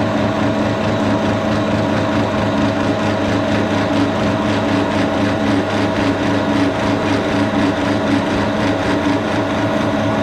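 1942 Brown & Sharpe No. 2 milling machine running steadily, its vertical spindle turning a 1-inch end mill at about 1550 rpm as it faces the end of an aluminum block. It gives a constant hum with a steady whine over it.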